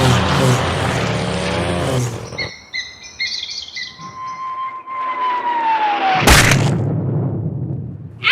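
Cartoon sound effects: a machine's engine running, cutting out about two seconds in. Then come a few short chirping tones, a long falling whistle and a sudden loud crash about six seconds in.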